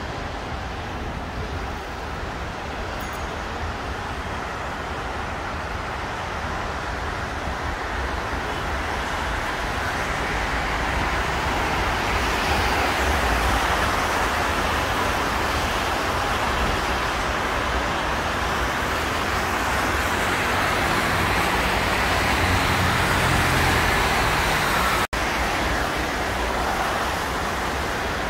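Steady traffic noise from a busy multi-lane highway, tyres hissing on the wet road. It swells through the middle and cuts out for an instant near the end.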